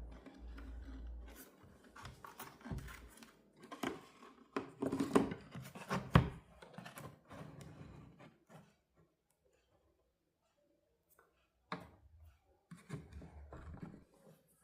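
Irregular clicks, scrapes and taps of hand work on the small plastic parts of a portable Bluetooth speaker, with a low hum at the start and again near the end, and a gap of near silence in the middle.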